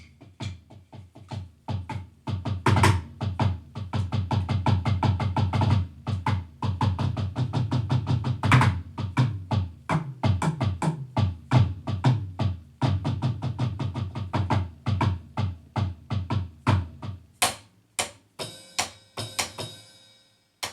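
Electronic drum kit played through an amplifier: a fast drum groove of rapid strokes, thickening about two seconds in and thinning to a few separate hits near the end.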